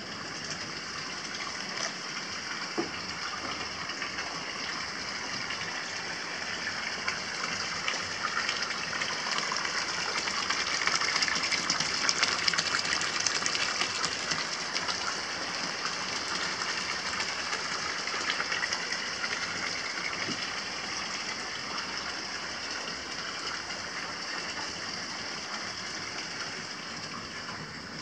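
Steady splashing rush of running water: hot-spring water pouring from a spout into a wooden open-air bath. It grows somewhat louder around the middle.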